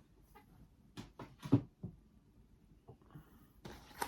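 Plastic DVD cases being handled. A few short clicks and knocks come about a second in, then another click with a little rustle near the end, as a case is snapped shut and the next one is picked up and opened.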